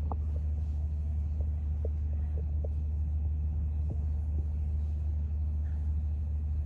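Steady low rumble with a few faint light clicks over it.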